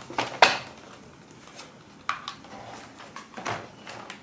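Light clicks and knocks from the plastic and foam parts of an RC glider being handled on a workbench. The sharpest comes about half a second in, followed by a few softer scattered clicks.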